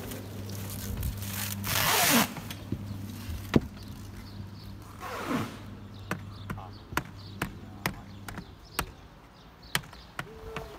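Plastic protective wrapping being ripped off a sheet-metal roofing coil: one long loud tearing rip about two seconds in and a fainter one near the middle, over a steady low hum. After that comes a run of sharp clicks, about two a second.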